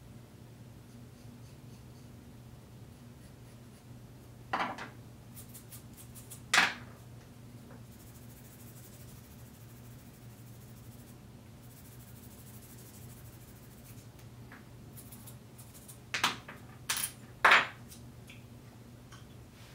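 A bassoon reed being worked on at the bench, heard as five short, harsh sounds in two groups, two a few seconds in and three near the end, over a steady low hum.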